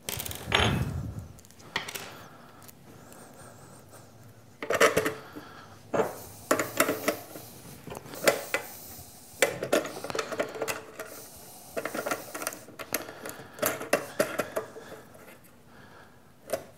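Clinks, taps and knocks of a machined aluminum tool rest and its mounting hardware being handled and fitted to a bench grinder by hand, opening with a dull thump about half a second in.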